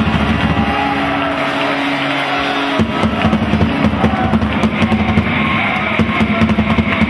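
Rock music with drum kit and electric guitar. The drums and bass drop out about a second in, then come back in sharply just before three seconds in.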